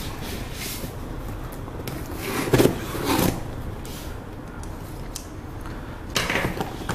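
A cardboard shipping box being handled and its packing tape slit with scissors: scraping and rustling of cardboard, strongest about halfway through and again near the end.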